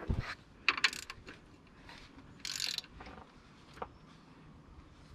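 Metal tools being handled on a serpentine belt tensioner: a 3/8-inch drive tool with an extension is fitted and levered. There is a low thump at the start, a few sharp metallic clicks about a second in, a short rasp about two and a half seconds in, and one more click near four seconds.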